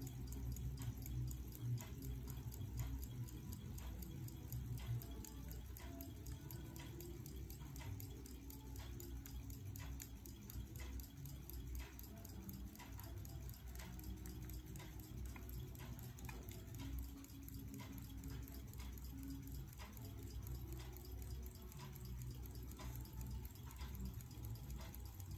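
Westclox Pocket Ben pin-lever pocket watch movement ticking: a faint, even run of small clicks.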